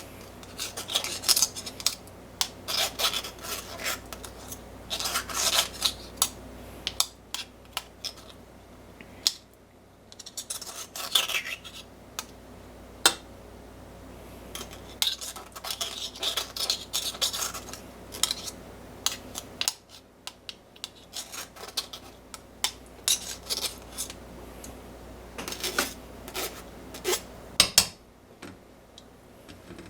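Metal utensils scraping, rubbing and clinking against kitchenware in irregular bursts, with short pauses between.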